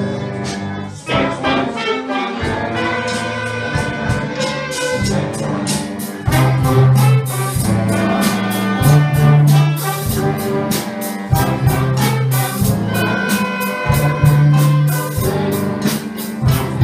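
A mixed school ensemble of violins, flutes, clarinets, saxophones and trumpets playing a tune together, over a steady beat and a moving bass line.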